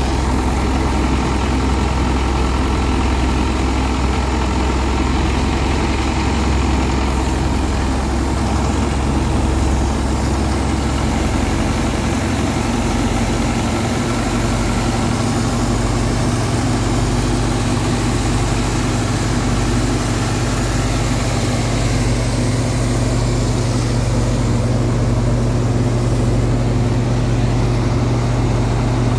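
Belarus tractor's diesel engine running steadily under load as it drives a wheat thresher, with the thresher's drum churning along with it. The engine's low note shifts about eleven seconds in.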